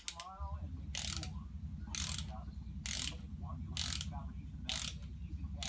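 Ratchet wrench being worked on engine bolts. Its back-swing clicks come in short strokes about once a second, over a steady low hum.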